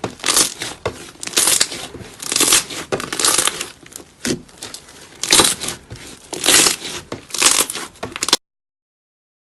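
Slime being pressed and worked, a run of rough, noisy squelching bursts about once a second that stop abruptly near the end.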